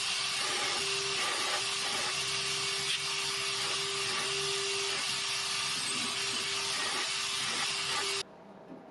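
Belt grinder running with a small metal piece held against the abrasive belt: a steady grinding hiss over a steady hum that drops out briefly now and then. It cuts off abruptly near the end.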